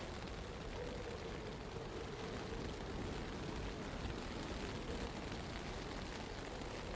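Steady blizzard ambience in a city: an even rush of wind-driven noise with a faint, wavering hum.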